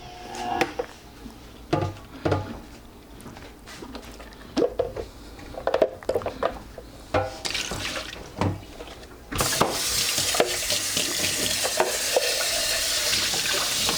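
Scattered knocks and clunks of a Vitamix blender jar and lid being handled, then about nine seconds in a kitchen tap turns on suddenly and runs steadily as they are rinsed in the sink.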